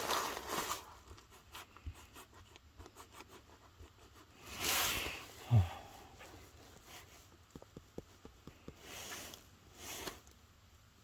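Rustling and handling sounds: several short swishes, a low thump a little after halfway, and a run of small clicks near the middle.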